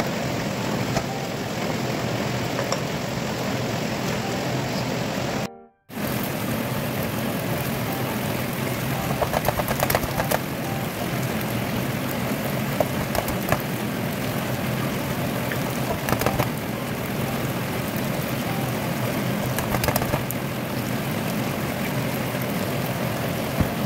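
Stir-fry of petai beans, shrimp and tomatoes sizzling steadily in a hot oiled wok, with eggs being cracked into the pan and a few light clicks and taps. The sound cuts out for a moment about six seconds in.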